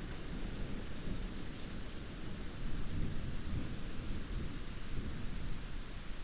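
Heavy rain falling steadily, a continuous hiss with a deep rumble underneath.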